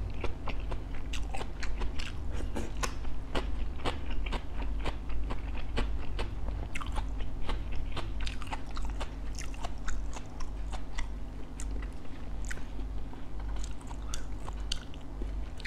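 Close-up chewing and biting of crispy fried bánh khọt topped with shrimp: a dense, irregular run of crisp crunches.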